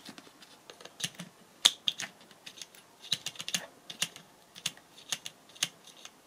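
Mains plug being pushed into and pulled out of a plastic power-strip socket several times: a string of light, uneven clicks and scrapes of the plug pins and plastic, roughly two a second.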